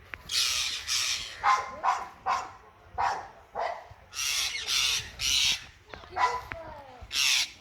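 Parrots giving a rapid series of harsh alarm squawks as they mob a ratsnake at their nest, with a dog barking among the calls.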